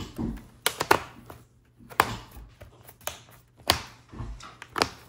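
Dell Precision 5560 laptop's bottom cover being pressed down onto the chassis, its clips snapping into place in a series of sharp, irregular clicks.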